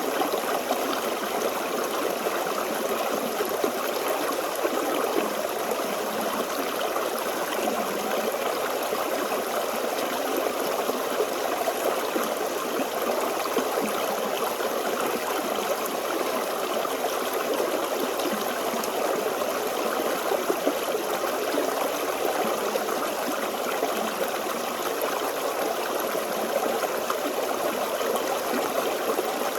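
Forest stream flowing over rocks: a steady babble of running water.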